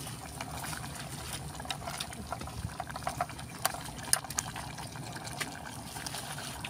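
Pot of duck braised with ginger bubbling as it reheats on a portable gas stove: scattered small pops and sputters over a steady low rush.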